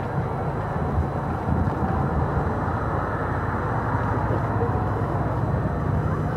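Steady outdoor arena noise: a low, even rumble with the murmur of a large crowd of spectators.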